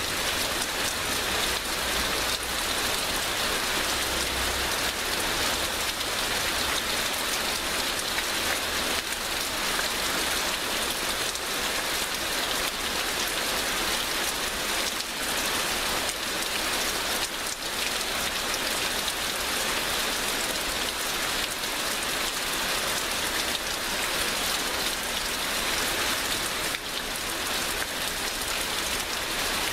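Heavy rain pouring down steadily, a dense hiss of many drops striking a surface.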